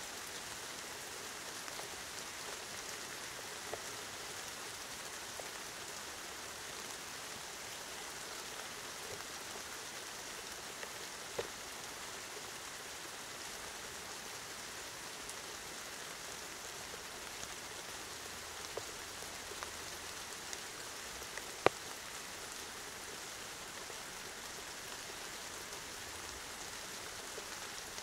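Steady rain falling in a storm, an even hiss, with a few sharp drip-like ticks; the loudest comes about two-thirds of the way through.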